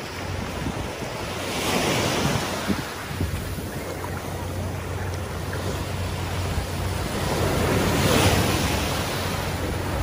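Small surf breaking and washing up the sand, swelling twice, about two seconds in and again near the end, with wind rumbling on the microphone.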